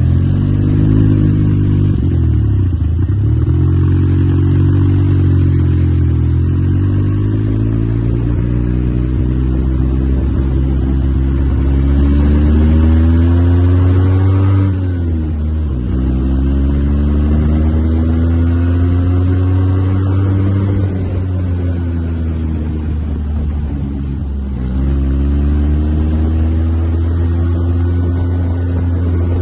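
Joyner 650 side-by-side's engine pulling under way, its pitch climbing through each run and dropping back sharply several times as the throttle eases off, the longest climb ending about halfway through.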